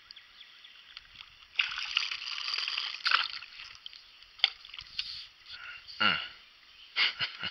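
Water sloshing and splashing around a kayak in several separate bursts, the longest starting about one and a half seconds in, with a few sharp knocks between them.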